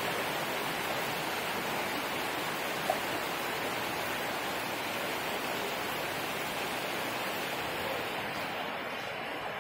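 Heavy rain falling steadily on trees, palm fronds and roofs: an even, unbroken hiss, with one light tap about three seconds in.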